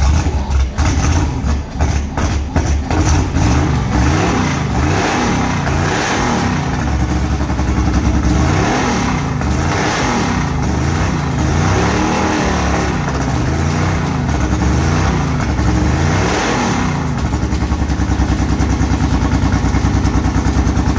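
5.3-litre LS V8 swapped into a jet boat, running loud and uneven, its pitch wavering up and down as it is blipped on a rough early tune. In the last few seconds it settles into a choppy, pulsing idle.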